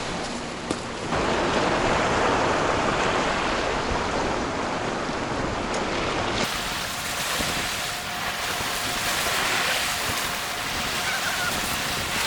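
Sea waves washing against shore rocks, with wind on the microphone. The sound changes abruptly about six seconds in.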